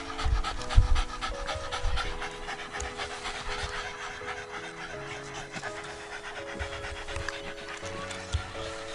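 Cavalier King Charles Spaniels panting steadily, with a few low bumps in the first second.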